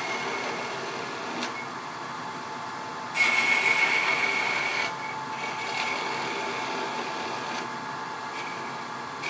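Wood lathe running while a turning tool cuts the tip of a spinning walnut blank, rounding it over. The cut gets louder and hissier for a couple of seconds about three seconds in, then eases back to a lighter cut.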